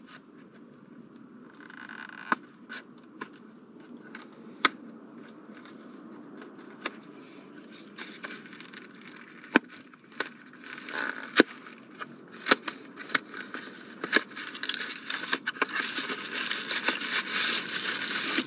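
Plastic wrapper of a McNugget Buddies toy being handled and torn open: scattered sharp crackles, turning to dense, continuous crinkling in the last few seconds.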